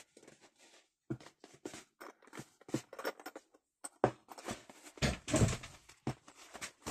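Hands pressing and smoothing freshly glued paper onto a cardboard vanity case: scattered light taps and rubs on paper, with a longer rubbing stretch about five seconds in.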